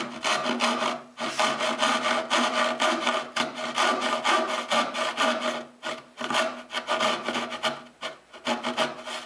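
Brass-backed dovetail saw cutting dovetail pins in a pine board by hand: quick back-and-forth rasping strokes with the blade ringing faintly, broken by a few short pauses between cuts.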